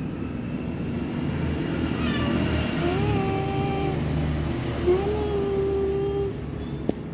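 Domestic cat meowing twice: two long meows, about three and five seconds in, each rising at the start and then held steady. A low steady rumble runs underneath, and a sharp click comes near the end.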